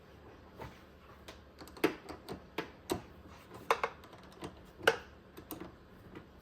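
Irregular sharp metal clicks and clinks of a hand tool working loose the side-post terminal bolt on a car battery, a bolt that is a bit stripped.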